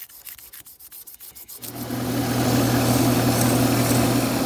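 Quick rubbing strokes by hand on a bloodwood pen blank. About a second and a half in, a Craftsman wood lathe switches on and runs with a steady hum, while 400-grit sandpaper hisses against the spinning blank's super-glue finish.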